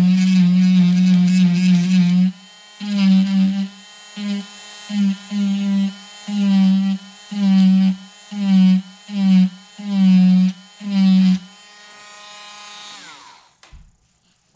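Handheld cordless rotary tool carving the bark off a juniper bonsai trunk to make a shari. Its loud buzz runs steadily for about two seconds, then comes in about ten short bursts as the bit works the wood, and fades away near the end, followed by a small knock.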